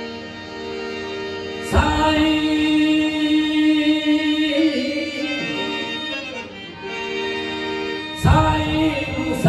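Sindhi folk song: a man sings long held notes into a microphone over a harmonium. His voice comes in loudly about 2 seconds in and again near the end, with a thump from the barrel drum at each entry, and the harmonium carries the tune alone in between.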